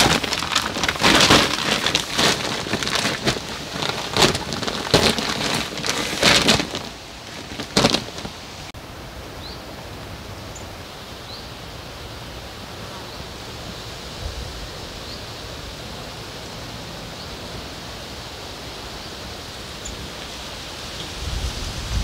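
Rustling and a rapid run of knocks and clatters for about seven seconds, ending with one sharp knock. Then a steady hiss of light rain falling, with a few faint high chirps.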